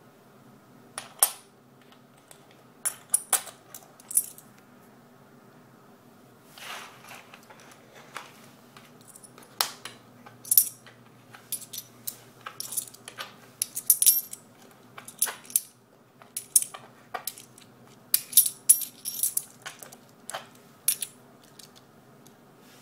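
Canadian silver half dollars clinking against one another as they are picked up and stacked: a run of sharp, bright metallic clinks, sparse at first and coming close together in the second half.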